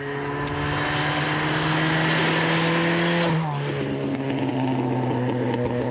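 Ford Sierra Cosworth's turbocharged two-litre four-cylinder running hard at high revs, with a strong hiss of wind and tyre noise. About three and a half seconds in, the engine note steps down to a lower pitch and holds steady there.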